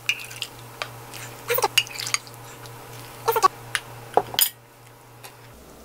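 Metal ladle and stainless sieve clinking and knocking against a glass bowl and glass jar as brine is ladled through the sieve. There are several separate sharp clinks, a few with a short ring.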